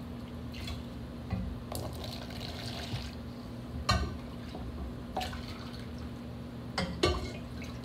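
Strained chicken broth being portioned into plastic containers: liquid dripping and splashing, with several sharp clicks of a utensil against the containers, the loudest about four seconds in and near the end. A steady low hum runs underneath.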